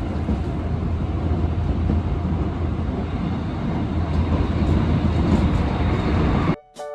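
Steady rumble of a moving commuter train heard from inside the carriage, heaviest in the low bass. It cuts off suddenly near the end.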